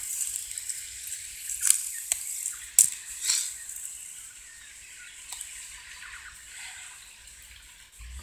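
Soft rustling with a few sharp clicks in the first three seconds, then a quieter rustle.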